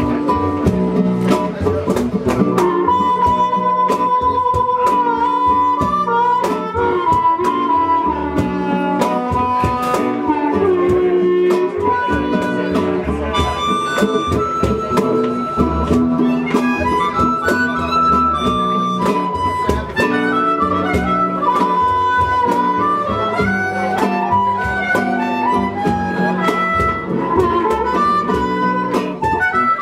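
Blues harmonica solo with bending, sustained notes, played cupped into a vocal microphone. It is backed by strummed acoustic guitar, double bass and a steady cajon beat.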